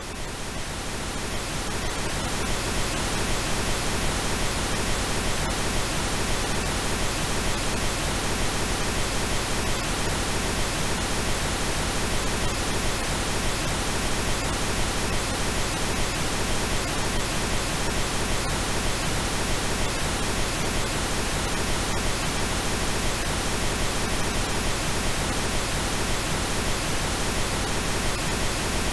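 Steady synthesized pink noise, an even hiss spread across all pitches from low rumble to high hiss, swelling up over the first couple of seconds and then holding level.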